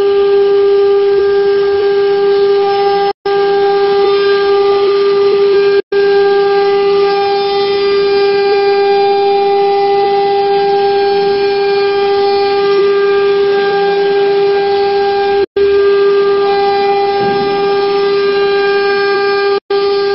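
CNC router spindle whining steadily at a high pitch while its cutter mills an acrylic sheet. The sound drops out for an instant a few times.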